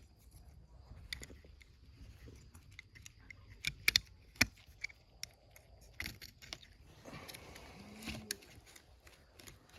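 Light clicks and taps of small metal carburetor parts being handled as the float is fitted into a snowmobile carburetor body, with a few sharper clicks about four seconds in.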